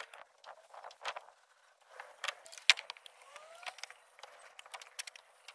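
Faint, sparse clicks and crackles of work boots stepping and handling on a GRP roof deck, with two short rising squeaks about three and a half seconds in. The sound is thin, with no low end.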